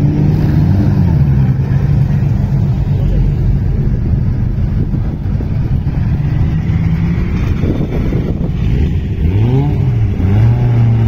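Engines of vintage open racing cars running at low speed as they drive past. The revs are blipped up and down briefly near the start and again near the end.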